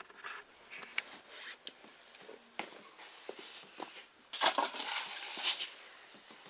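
Small metallic clicks and clinks of hands handling an engine oil drain plug with its new sealing washer, getting it ready to thread back in. A louder scuffing noise lasting about a second comes a little past four seconds in.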